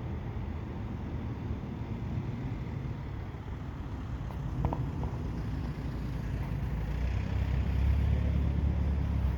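Steady low rumble of a motor vehicle, growing louder for a couple of seconds near the end. A brief high squeak sounds about halfway through.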